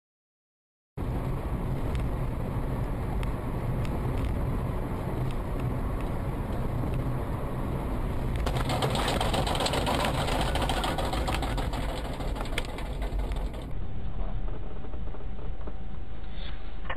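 Car engine and road noise recorded by a dashcam inside a moving car. It runs steadily after about a second of silence, with light ticking at first, and grows louder and hissier for several seconds from about halfway. Near the end it cuts abruptly to a duller recording of similar traffic noise.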